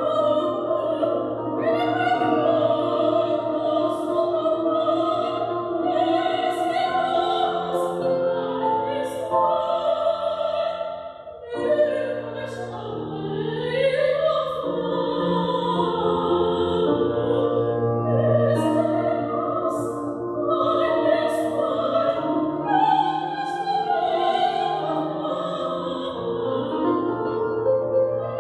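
A woman singing in an operatic style with wide vibrato, accompanied by an electronic keyboard playing sustained chords. The line pauses briefly about eleven seconds in, then resumes with a rising phrase.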